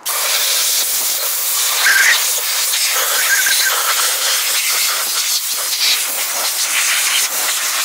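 Compressed-air blow gun hissing steadily as it blows lacquer thinner off a freshly cleaned Briggs & Stratton engine block; the hiss cuts in suddenly and flutters slightly as the jet moves over the block.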